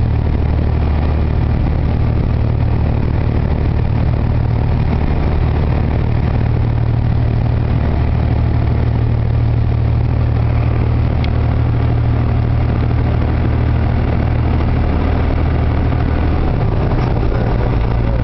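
A vehicle engine running steadily with a low drone, its pitch shifting slightly near the end.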